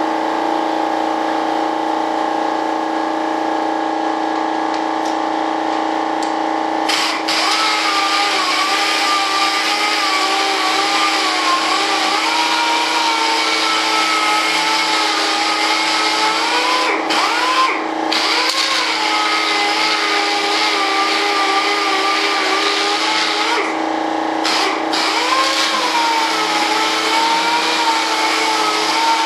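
Electric orbital sander running on a cured resin composite mold, with a steady motor whine. From about seven seconds in, the pitch wavers and sags as the pad is pressed against the surface, dipping briefly twice more.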